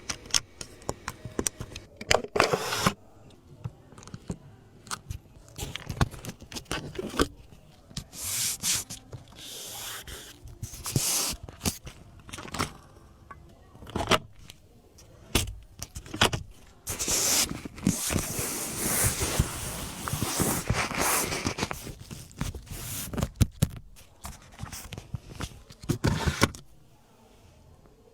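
Irregular clicks, knocks and scraping rustles of a car's fittings being handled, with longer stretches of scraping around the middle.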